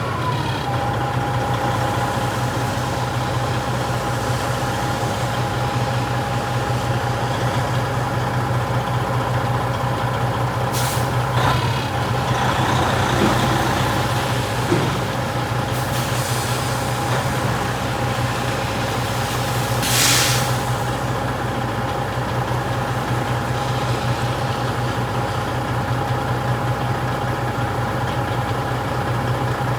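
Heavy truck's diesel engine running steadily, with a few short air-brake hisses, the loudest about two-thirds of the way through.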